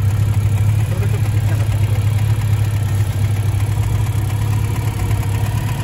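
Car engine running steadily with a deep, even hum, holding one speed throughout.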